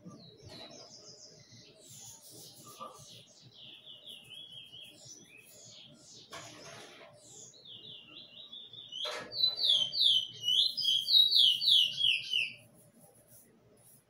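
Songbird singing a twittering series of quick, downward-sliding notes, rising to its loudest in a fast run of falling notes over the last few seconds. A few brief rustling noises come in between.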